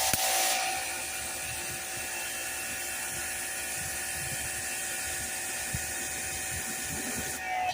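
Craftsman CMEPW2400 electric pressure washer running with the 25-degree nozzle: a steady motor-pump whine of several tones over the hiss of the water jet. It starts at once, is a little louder for the first half second, then holds steady and cuts off near the end.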